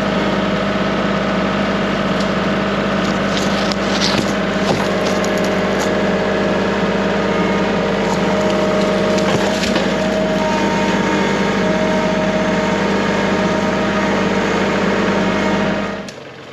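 Chainsaw running at a steady high throttle while cutting through the trunk of a fallen tree, with brief crackles of wood giving way. The saw drops off near the end.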